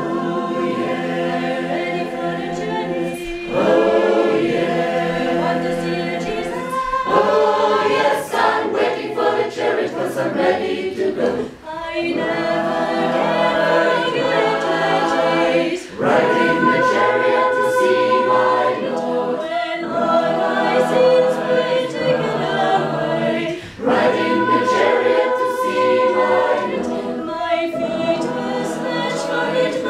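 Mixed choir singing a cappella in several parts: held chords in phrases, with short breaks between them every few seconds.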